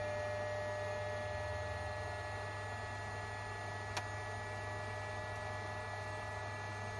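Steady electrical hum and faint whine of a Cessna 414A's avionics, just powered up with the avionics master switch, as the Garmin 530 boots. A single sharp click about four seconds in.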